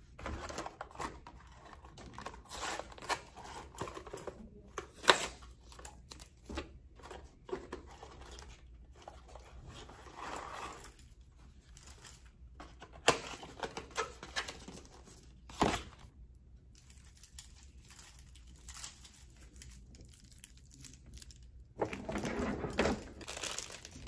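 Candy cane packaging being opened and handled: a cardboard box torn and pulled apart and the candy canes' plastic wrappers crinkling, with scattered sharp clicks and taps. Longer stretches of rustling come about ten seconds in and again near the end.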